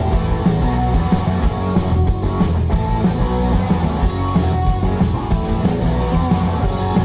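Rock band playing live, an instrumental passage between sung lines with guitar over a steady drum beat.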